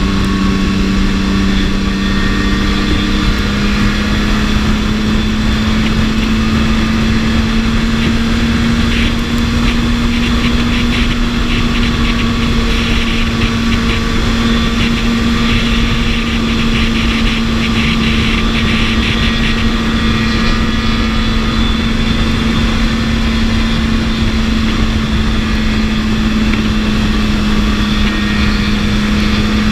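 BMW S1000RR inline-four engine running steadily at speed, its pitch rising slightly about three seconds in and then holding, under a constant rush of wind noise.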